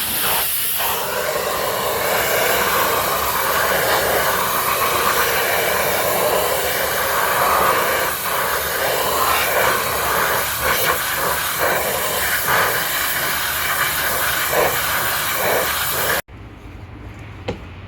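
High-pressure washer jet spraying water against a mud-covered truck: a loud, steady hiss with a shifting splatter. About sixteen seconds in it cuts off suddenly to a much quieter low hum.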